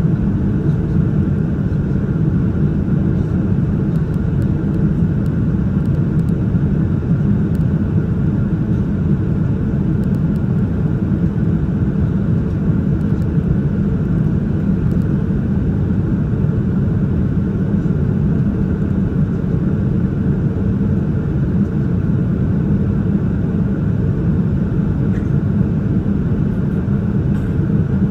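Steady low cabin rumble inside a Boeing 787-9 airliner in flight, an even, unchanging noise with most of its weight in the low range.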